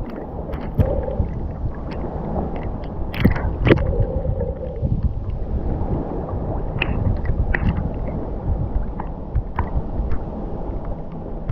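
Gentle ocean waves washing and lapping on a beach, a steady rush of water broken by scattered small splashes, with wind rumbling on the microphone.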